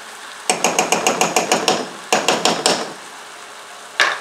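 A small metal measuring spoon tapped rapidly against the rim of the skillet to knock the mustard off, in two quick runs of sharp clicks about eight a second, then one more knock near the end. Food sizzles faintly in the pan underneath.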